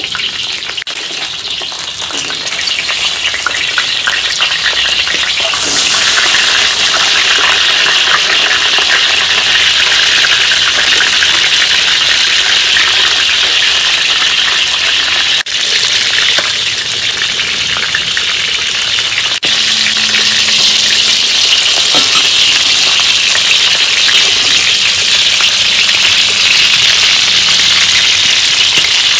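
A whole chicken frying in hot oil in a steel wok, a loud steady sizzle that swells about six seconds in as the skin browns. Two sharp clicks sound around the middle.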